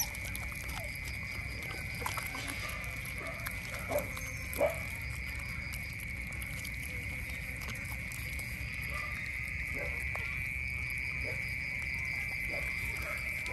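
Otters feeding on fish, with scattered chewing clicks and two short squeaky calls about four seconds in, over a steady high-pitched drone.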